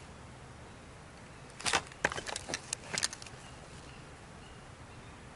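Hands handling fishing line and a plastic Nalgene canteen used as a hobo reel while the line is wound on and its end tucked in: a quick cluster of clicks and rustles starting about a second and a half in and lasting under two seconds.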